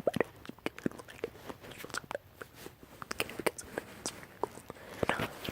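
Close-miked ASMR mouth sounds: irregular wet clicks and smacks of the lips and tongue, a few per second, with some breathy hiss near the end.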